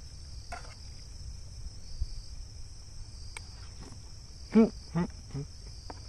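Crickets chirping steadily in a continuous high-pitched drone. About four and a half seconds in, a person makes a few short voiced sounds.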